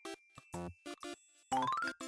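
Background music of short, evenly spaced notes, with a quick rising run of notes about one and a half seconds in.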